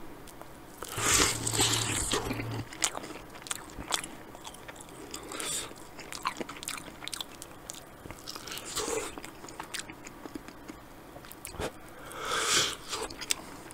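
Close-miked eating of a sauced chicken wing: bites, crunches, chewing and mouth clicks come in irregular bursts, the loudest about a second in and another near the end.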